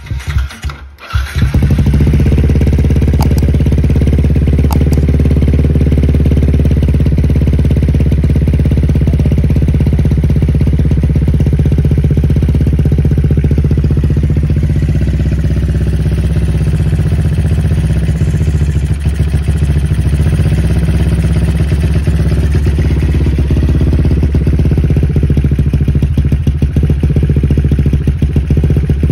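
Yamaha LC135 single-cylinder four-stroke engine, breathing through a GL Racing cutting standard 32mm exhaust, starts about a second in and settles into a steady idle.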